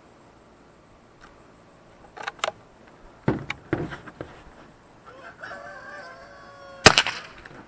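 A rooster crows, one call of about a second and a half, followed near the end by a single sharp crack. A few faint clicks come before it.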